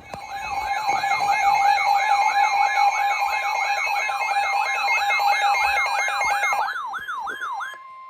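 Electronic weather-alert alarm: a siren-like sweep rising and falling about three times a second over a steady tone, ending on a short plain tone. It signals that a severe thunderstorm warning is coming.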